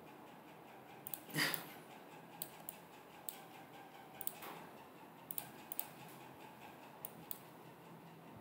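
Faint computer mouse clicks, about a dozen scattered irregularly, some in quick pairs, over a faint low hum.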